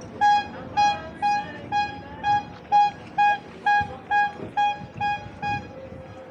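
A horn sounding a rapid string of about a dozen short toots of one steady pitch, roughly two a second, stopping shortly before the end.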